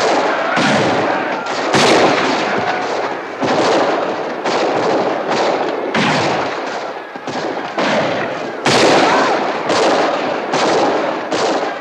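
Heavy gunfire in a film battle scene: many rifle and pistol shots, several a second and overlapping, each with a ringing tail, over a continuous din.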